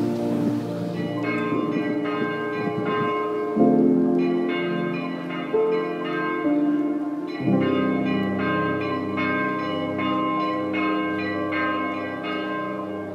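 Background music: bright, bell-like notes repeating rapidly over sustained chords that change about every four seconds.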